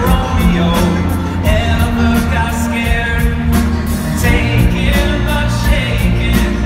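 Live band music with singing: banjo, acoustic guitar and cello playing under a lead vocal, with drums, heard from among the audience in a large hall.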